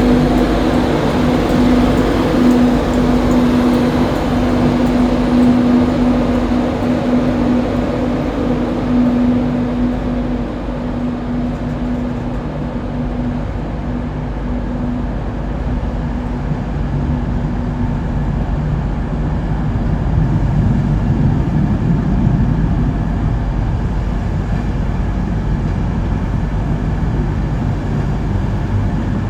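Class 91 electric locomotive and InterCity 225 train pulling away, with a continuous low rumble and a steady hum that fades out about halfway through.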